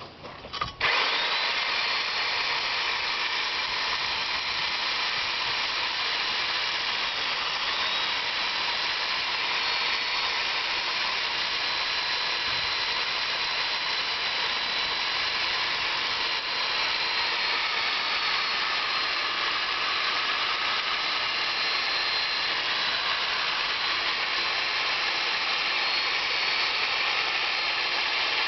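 Electric drill turning a home-made core drill bit, cutting into sandstone. It starts about a second in, after a few clicks, and then runs steadily with a thin high whine.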